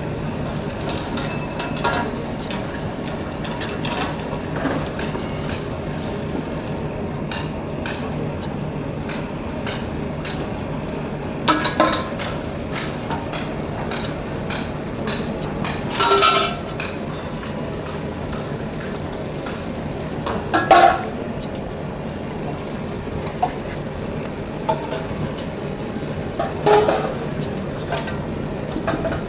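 Copper tinning work: light metal clinks and taps on thin copper over a steady low hum, with four louder ringing metal knocks.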